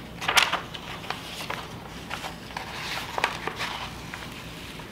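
Crinkling and crackling of a plastic self-adhesive laminating sheet and paper pages being handled. There are a few sharp crackles, the loudest about half a second in, and smaller ones scattered through the first few seconds.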